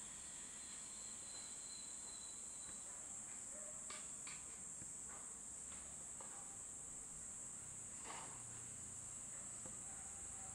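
Steady high-pitched insect drone, like crickets, with a few faint short chirps scattered through it.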